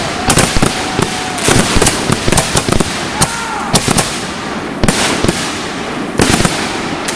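Consumer aerial fireworks in a finale barrage: a rapid run of sharp bangs as shells burst overhead, with crackling between them. The bangs thin out toward the end.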